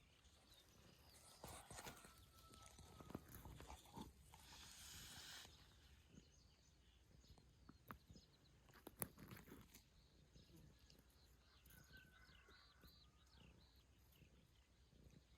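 Faint rain ambience: scattered drop ticks and patters, with a short hissy rustle about five seconds in and faint birds chirping in the background.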